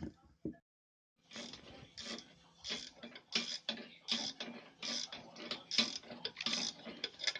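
A hand tool working on metal drive-train parts: two sharp knocks at the very start, then from about a second in a run of short clicking strokes, roughly one or two a second, unevenly spaced.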